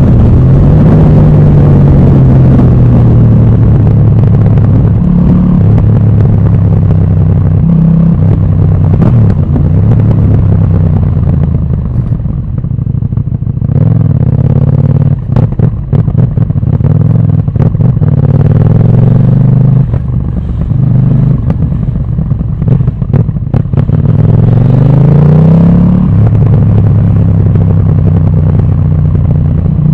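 Motorcycle engine and exhaust heard from on the bike, the revs rising and falling through repeated gear changes. There is a quick rising rev near the end, and a few short crackles in the quieter stretches midway.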